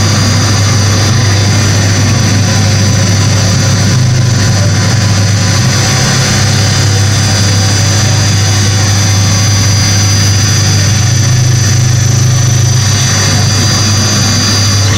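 Loud live electronic noise music, played on a tabletop of effects units: a heavy, steady low drone under a dense wall of noise and held high tones, with no break.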